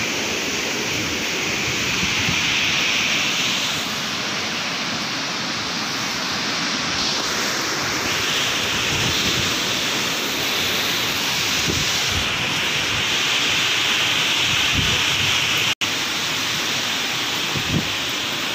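Cyclone wind and rain: a loud, steady rushing noise, with wind buffeting the microphone.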